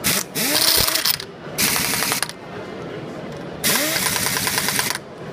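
Chicago Pneumatic CP7748TL ½-inch composite torque-limited air impact wrench running down wheel lug bolts in four short bursts of rapid hammering, each lasting up to about a second. The motor's pitch rises as a burst starts.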